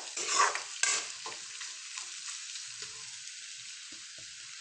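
Food frying in a pan with a steady sizzle. A utensil stirs and scrapes through the first second, and there is one sharp knock just before the one-second mark.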